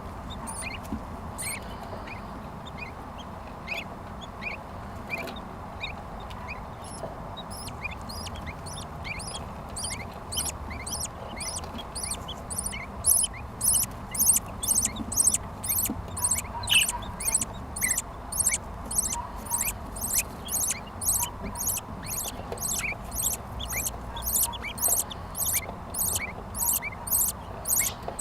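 Budgerigar chicks making high-pitched begging chirps in the nest, the calls of chicks being fed. They start sparse, then from about halfway through come louder in a steady run of about two a second.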